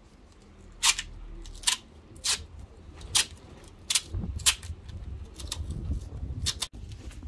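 Duct tape ripped off the roll in about ten short, sharp pulls as it is wound tightly round a chrome sink waste fitting.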